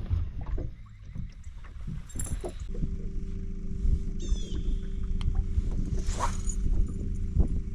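Boat motor humming steadily over a low rumble, the hum starting about three seconds in, with a few light knocks.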